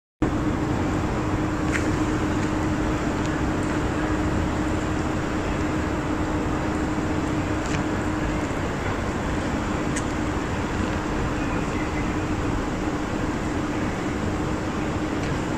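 Steady outdoor background noise, a constant rushing like city traffic or a ventilation unit, with a low steady hum that stops about halfway through and a few faint clicks.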